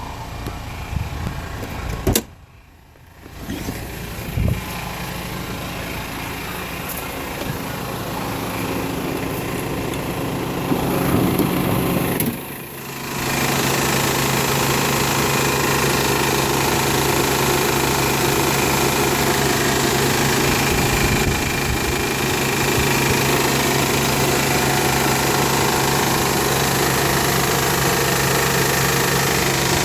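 Honda Pilot's V6 engine running just after a cold start, with a rattle. The owner notes it happens only for about the first ten minutes, after which the engine runs smoothly. There is a sharp click about two seconds in, and the running turns louder and steadier from about halfway through.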